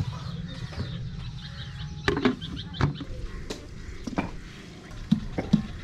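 Steel cooking pots and utensils knocking and clinking as they are handled and set down, a few separate knocks and then a quicker run of them near the end, over a steady low rumble.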